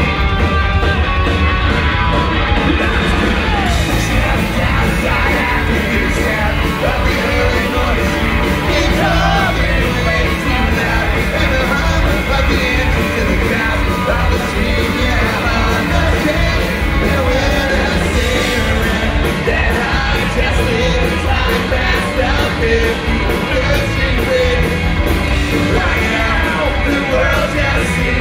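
A ska-punk band playing loud live rock, with voices singing and yelling over the amplified band.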